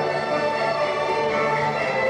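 Orchestral music with strings holding long, sustained notes.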